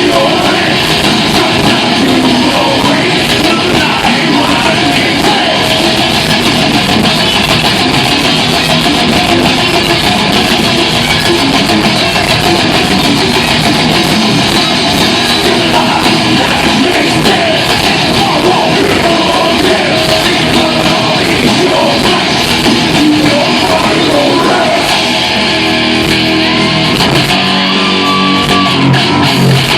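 A heavy metal band playing loud, distorted electric guitars over drums, with singing. Near the end it thins to a stepped guitar riff.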